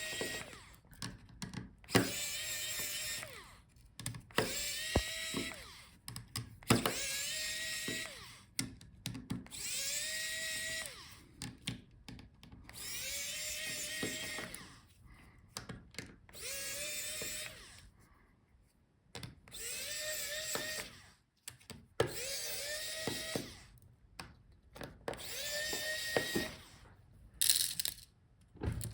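Small electric screwdriver backing out the tiny screws around a laptop touchpad, in about a dozen short runs, each a whine that rises as the motor spins up, holds steady and stops.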